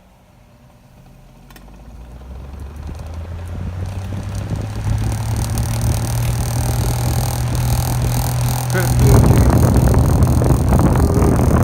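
Small Hoover electric fan motor spinning up after being switched on. It runs with a steady hum and a harsh, rough noise from its badly worn bearings, which sounds like holy hell. About nine seconds in it gets suddenly louder and rougher.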